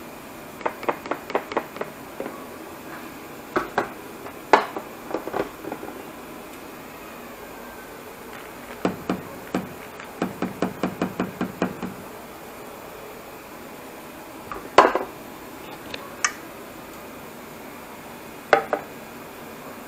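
Cookware and utensils knocking and clinking on a pan and a glass jar: a quick run of taps near the start, a longer run of rapid taps around the middle, and a few louder single knocks.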